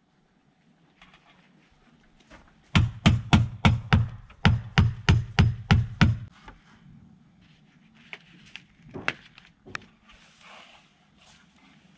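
Hammer driving nails at the top of a window frame: a quick run of about a dozen sharp blows, around four a second, starting a couple of seconds in, followed by a few lighter taps.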